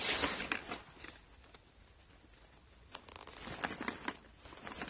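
Irregular rustling and light crackling from a small caught bass being handled and unhooked by gloved hands. There is a burst in the first second, a lull, then more from about three seconds in.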